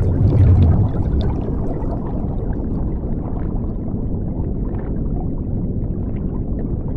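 Underwater bubbling and low rumbling sound effect, with a louder rush of bubbles in the first second, then a steady underwater wash.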